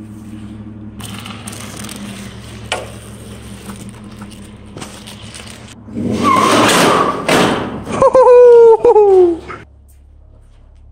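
A vehicle engine hums steadily, then about six seconds in comes a loud rough scraping followed by a loud screech that falls in pitch, as the SUV hauls on the steel door by a cable. The sound cuts off sharply near the end.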